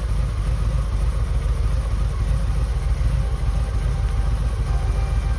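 Harley-Davidson Low Rider S's Milwaukee-Eight 114 V-twin engine running steadily with a deep, even note.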